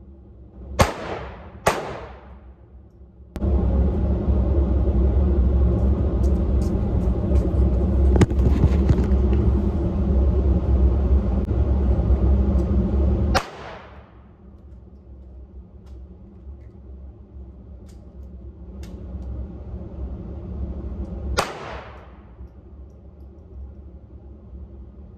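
Four gunshots, each a sharp crack with a reverberant tail: two close together in the first two seconds, one about thirteen seconds in and one near the end. Between the first pair and the third shot, a loud steady low rumble runs for about ten seconds and cuts in and out abruptly.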